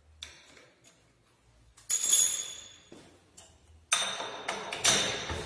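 Metal-on-metal clinks and clanks from hands working a milling machine's chuck and feed handles: a light click, then a ringing metallic clink about two seconds in, and from about four seconds a run of clanks and rattles as the table-feed crank is handled.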